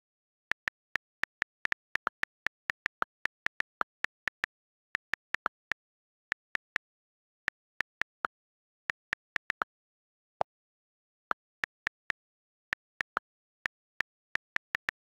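iPad on-screen keyboard key clicks as text is typed, about three to four sharp clicks a second at an uneven typing pace with short pauses. One click about ten seconds in is lower than the rest.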